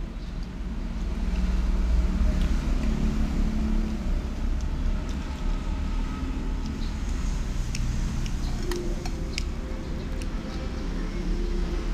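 Steady low rumble of road traffic, louder for a few seconds near the start, with a few light clicks near the end.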